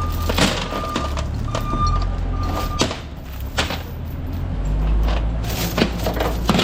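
A vehicle's reversing alarm beeps at an even pace, about one beep a second, and stops about three seconds in. Under it runs a low engine rumble, with several sharp knocks and clanks throughout.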